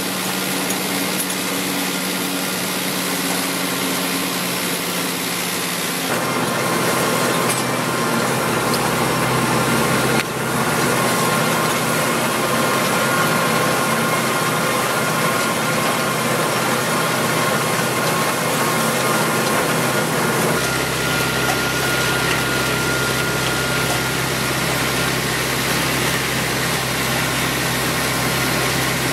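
Tractor engine running steadily under load while pulling an Elmer's six-row knife cutter through rows of red kidney beans, a continuous mechanical drone whose tone shifts a few times.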